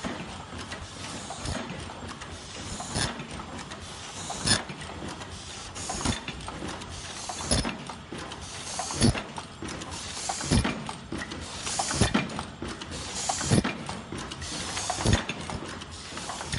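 Automatic disposable face-mask production machine running, a sharp clack about every one and a half seconds over a steady mechanical hum.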